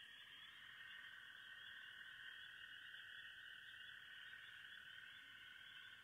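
Faint, steady night chorus of calling frogs or insects: a continuous high-pitched drone of many voices with no pauses.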